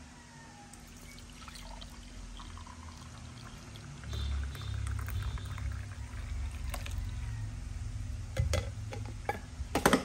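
Hot brewed coffee poured from a glass carafe into a ceramic mug, a steady stream that gets louder about four seconds in. A few short knocks near the end.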